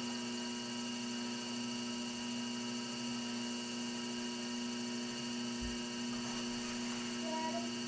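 Electric potter's wheel spinning, its motor giving a steady hum.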